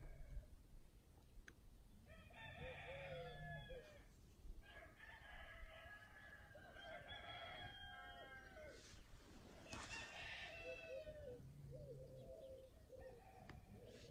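Roosters crowing faintly, several long crows one after another, some overlapping.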